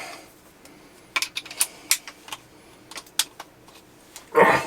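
A few sharp, separate metallic clicks from a wrench and socket working the Mossberg 500's stock bolt loose, followed by a brief voice sound near the end.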